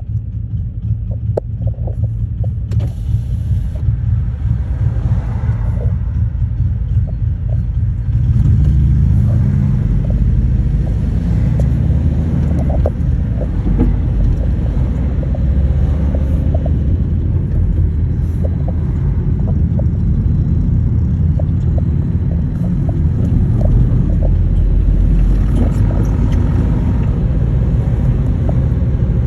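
Harley-Davidson motorcycle engine running with a deep, low rumble. It gets louder about eight seconds in and stays loud.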